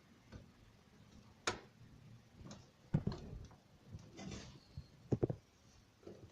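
Irregular clicks and light knocks of hands working inside a desktop computer case, handling parts and cable connectors. The sharpest clicks come about three seconds in and as a quick pair a little past five seconds.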